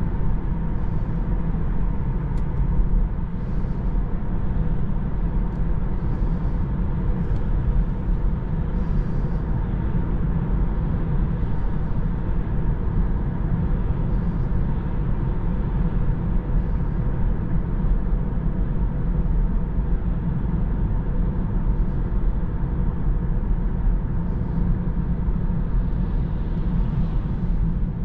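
Steady road and tyre noise inside the cabin of a Tesla Model 3 as it cruises, a low even rumble with a faint steady whine above it; being electric, the car has no engine note.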